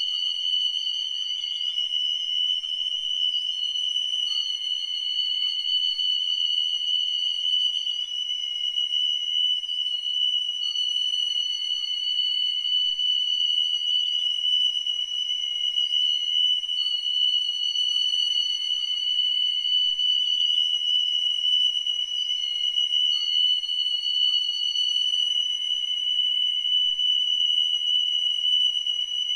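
Live-electronics music of several high, steady tones held together without a break. One of the upper tones wavers upward in a short figure about every six seconds, then settles back.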